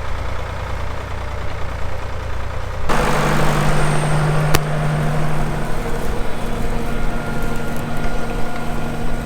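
Vintage Ferguson tractor engine running steadily. About three seconds in the sound jumps abruptly to a louder, closer engine note, with a single sharp click shortly after.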